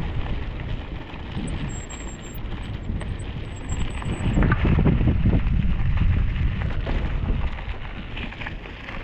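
Wind buffeting the microphone over a steady rumble, with scattered knocks and rattles, louder from about four seconds in.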